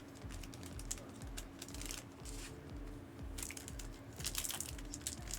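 Rustling and crinkling of trading-card packs and wrappers being handled, with scattered small clicks. It gets busier about three and a half seconds in.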